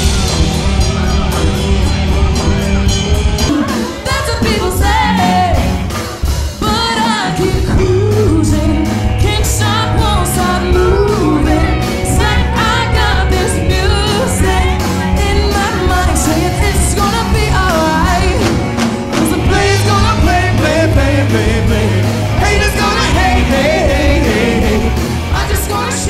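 Live band playing an up-tempo pop/rock song, with drums, bass and guitar under a woman singing lead. The music drops back briefly about six seconds in, then carries on at full level.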